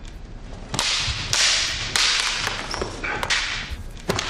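Bamboo kendo swords (shinai) swishing through the air and clacking together several times in quick succession during sparring.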